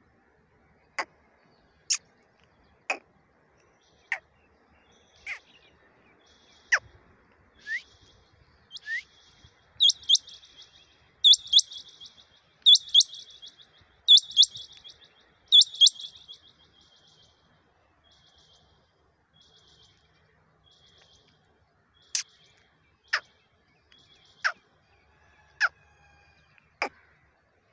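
Caged rain quail calling with short, sharp notes about once a second. In the middle comes a stretch of rapid high trilled bursts, five in a row, fading to faint chatter before the sharp single notes return near the end.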